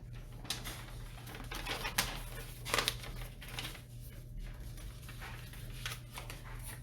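Small clicks and rustling as small parts and packaging are handled, with a couple of sharper ticks near the middle, over a low steady electrical hum.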